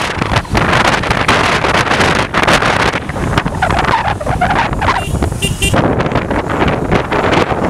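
Strong wind buffeting the microphone outdoors, a gusty rushing noise, with a brief high squeal around five seconds in.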